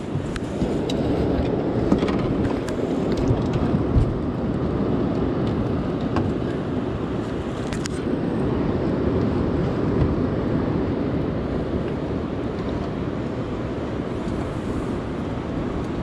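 Steady rushing noise of river current and wind around the boat, with a few light knocks from gear being handled.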